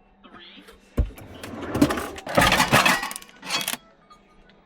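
Kitchen handling noise: a sharp knock about a second in, then a couple of seconds of rustling and clattering, as vacuum-sealed packs of steak are put away.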